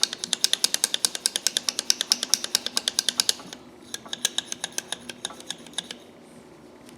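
Pliers worked rapidly open and shut, the metal jaws clicking about eight times a second as the rusted, oil-soaked joint is freed. The clicking turns fainter a little past halfway and stops about six seconds in.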